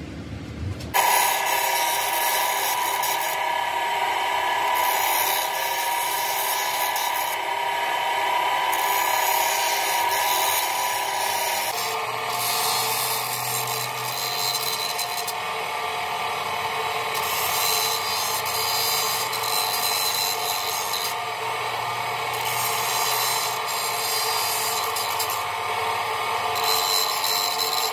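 A machine tool working steel, giving a steady metallic ringing with several held tones. It starts abruptly about a second in and shifts in pitch about twelve seconds in.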